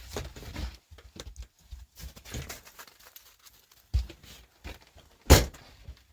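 Scattered knocks, thuds and rustling, with a strong knock about four seconds in and one loud sharp knock about five seconds in.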